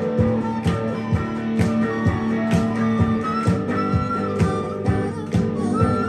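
Live acoustic band music: semi-acoustic guitar and flute playing, with handclaps keeping time on the beat about twice a second.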